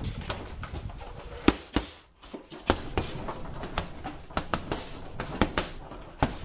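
Boxing gloves punching a heavy punching bag: a string of sharp thuds in quick combinations of two or three, with a brief pause about two seconds in.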